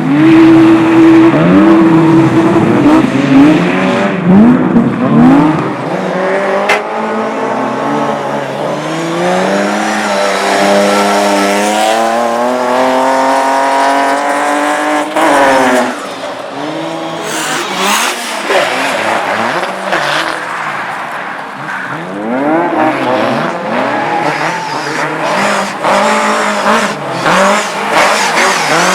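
Race car engines revved hard, pitch swinging up and down with the throttle. About eight seconds in, one engine climbs steadily for several seconds and cuts off sharply, followed by many quick short rev sweeps, with tyre squeal mixed in.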